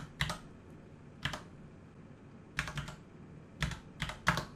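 Computer keyboard keystrokes: a dozen or so sharp clicks, single or in quick clusters of two or three, as numbers are typed into a calculator.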